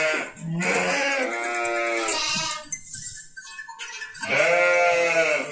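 Sönmez sheep bleating: a long bleat, a few fainter calls, then another long bleat near the end.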